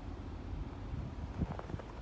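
Footsteps crunching in snow, a few faint steps toward the end, over a low steady rumble.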